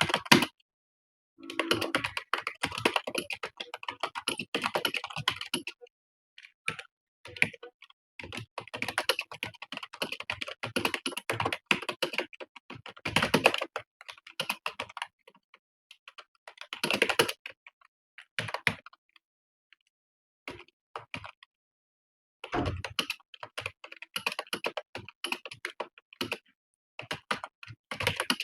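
Fast typing on a computer keyboard: quick runs of keystrokes broken by pauses of one to three seconds.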